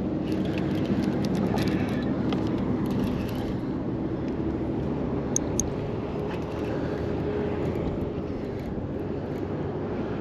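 Steady wind buffeting the microphone, a dense low rumble, with a faint hum underneath and a couple of small clicks about five seconds in.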